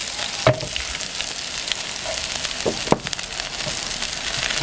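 Chopped shallots sizzling in hot coconut oil in a frying pan as a tempering is fried, stirred with a wooden spatula. There are a few sharp knocks: one about half a second in, and two just before three seconds.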